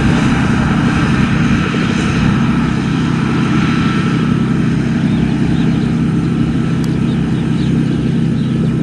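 Kaset Pattana rice combine harvester running steadily while cutting and threshing rice, its engine and machinery making an even, continuous drone.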